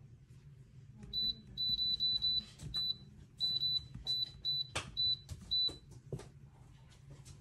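Electric kettle's touch control panel beeping: about a dozen short, high electronic beeps at uneven intervals as its buttons are pressed, with a couple of faint taps among them.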